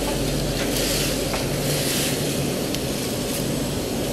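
Industrial vacuum fryer machinery running with a steady hum and hiss, with dry fried radish chips rustling as a hand stirs them in the basket.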